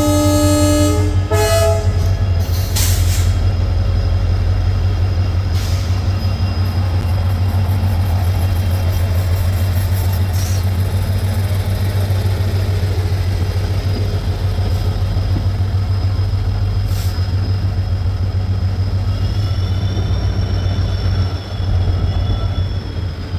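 A WDP4 diesel locomotive's horn sounds and cuts off within the first couple of seconds, leaving the steady low drone of its EMD two-stroke diesel engine and the running train heard from the coach just behind it, with scattered knocks. Near the end a thin high wheel squeal rises and falls, as on a curve.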